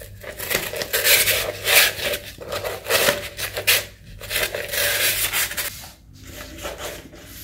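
A scouring pad scrubbing the inside of a plastic mug to take stains off, a run of rough rubbing strokes that eases off to quieter rubbing near the end.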